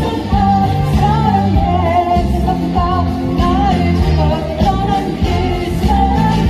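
A woman singing a Korean song live into a handheld microphone, her held, wavering melody carried over instrumental accompaniment through stage speakers.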